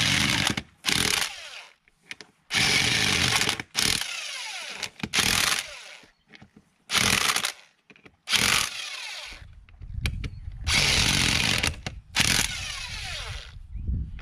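Corded electric impact wrench run on a tractor's lug nuts in repeated short bursts with brief pauses between, and one longer run about ten seconds in. This is the nuts being run on and snugged with taps rather than a held trigger.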